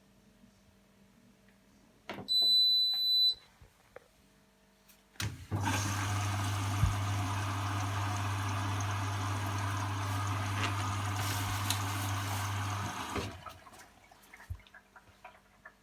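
Hotpoint washing machine beeping once for about a second as the wool 40 programme starts. A few seconds later it clicks and water rushes in through the inlet valve for about eight seconds with a steady low hum, then cuts off.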